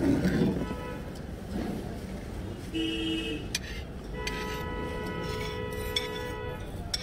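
Vehicle horns honking in street traffic over a steady low traffic rumble: a short honk about three seconds in, then a longer one of about two and a half seconds.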